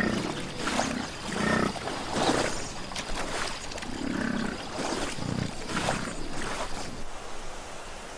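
Bull American bison grunting and bellowing, a string of short low calls every half second to a second that stop about a second before the end, with Canada geese honking now and then.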